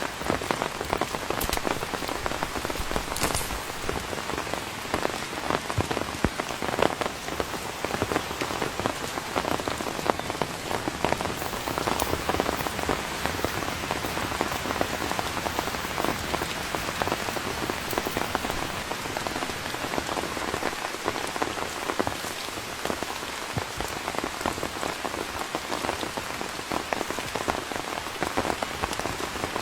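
Steady rain falling, with many small, sharp hits of individual drops over an even hiss.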